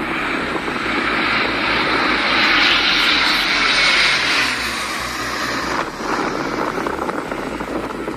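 Lockheed C-130 Hercules's four turboprop engines droning through a low-level pass, loudest about three to four seconds in, with the pitch falling as the aircraft goes by. The sound changes abruptly about six seconds in.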